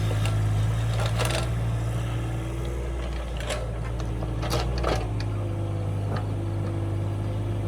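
Kubota excavator's engine running steadily, with several sharp knocks scattered through; the low engine note shifts slightly about five seconds in.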